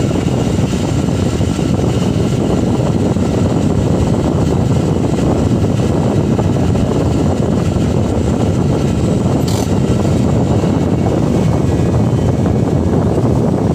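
Steady diesel engine noise heard from inside a light dump truck's cab while an excavator loads soil. A short, sharp sound comes about nine and a half seconds in.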